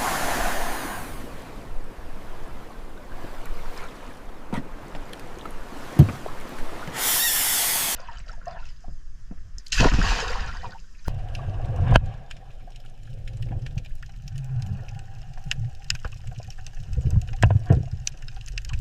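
Water noise, with a loud rushing burst about seven seconds in. After that the sound turns muffled, with low rumbling swells and scattered sharp clicks, like being underwater.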